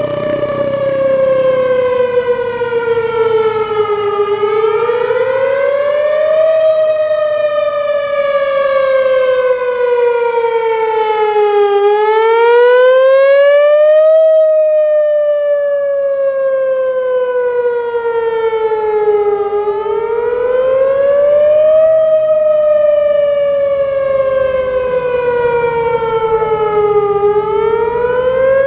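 Whelen WPS 3016 electronic outdoor warning siren sounding its wail tone in a routine test. The pitch climbs over about two and a half seconds, then slides down over about five, repeating roughly every seven and a half seconds.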